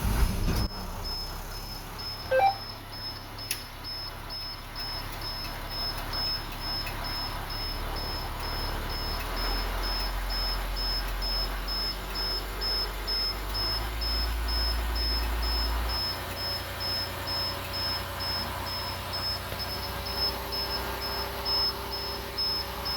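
2002 Blue Bird International school bus's diesel engine catching right at the start and then idling with a steady low rumble, which deepens about nine seconds in and eases back about sixteen seconds in. A high, rapidly repeating dashboard beep sounds underneath.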